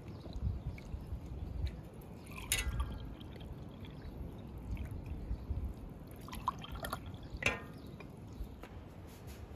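A red berry drink poured from a glass pitcher into drinking glasses, splashing as the glasses fill. Glass clinks ring out about two and a half seconds in and twice more later on.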